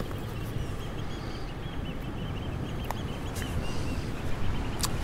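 Steady low rumble of wind and sea surf on a rocky shore, with a small bird twittering faintly for a few seconds and a few light clicks.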